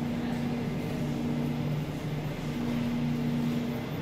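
Steady low hum of supermarket refrigerated display cases, with a few fixed tones that fade in and out over an even noise.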